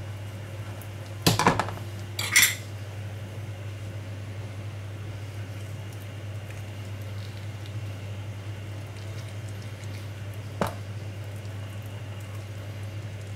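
A kitchen knife knocking against a plastic cutting board: two short clattering knocks about a second apart near the start, and a single sharp tap later. A steady low hum runs underneath.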